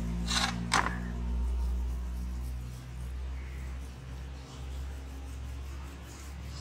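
Two quick brushing pats about half a second apart near the start, from hands handling flour-coated chicken fingers, over a steady low hum.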